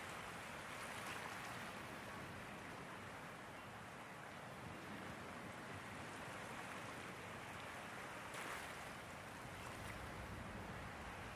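Faint, steady wash of Wadden Sea water, swelling and easing gently, with a brief louder rush about eight seconds in.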